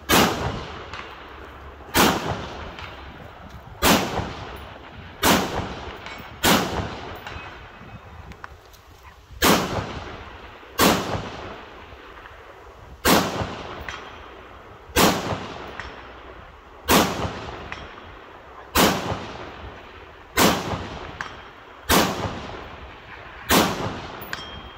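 AR-15 rifle fired outdoors in slow, aimed single shots, about fourteen of them one to three seconds apart. Each sharp crack trails off in a rolling echo.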